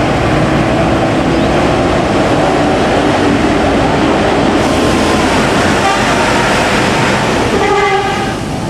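Steady loud rumble and rush of a moving vehicle.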